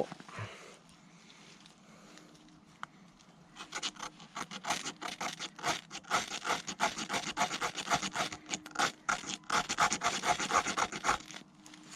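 A small ferro rod struck over and over with the back of a multitool's saw blade: a quick run of rasping scrapes that starts a few seconds in and stops shortly before the end, throwing sparks to light tinder.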